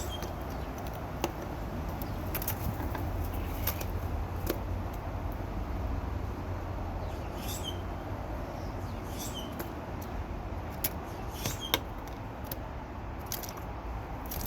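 Scattered sharp clicks and a few short, faint bird chirps in the second half, over a steady low rumble.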